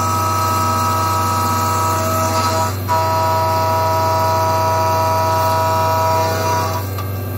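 CNC milling machine's end mill cutting metal: a steady pitched whine over a low machine hum. The whine breaks off briefly about three seconds in, returns, and fades out near the end, leaving the hum.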